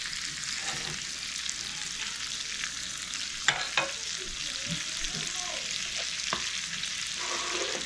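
Sliced kielbasa sizzling in a cast iron skillet turned up to medium-high heat to char it: a steady frying hiss. A couple of sharp clicks come about three and a half seconds in, with a few fainter ticks near the end.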